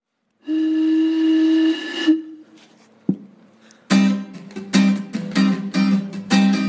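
A held musical note that stops about two seconds in, then a single click. About four seconds in, rhythmic strumming of chords on a plucked string instrument starts, about three strokes a second.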